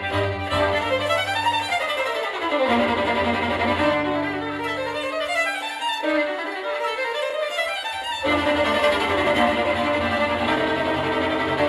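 String music led by violin, played back through a tube amplifier and fullrange speakers. Quick falling and then rising scale runs come in the middle. The low bass drops out from about two seconds in and returns near eight seconds.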